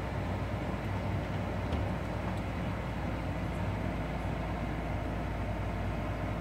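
Steady engine hum and tyre noise heard from inside a vehicle's cab while it drives on a snow-covered road.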